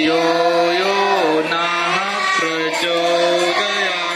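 A man chanting a Vedic havan mantra in Sanskrit, in long held notes that step up and down in pitch.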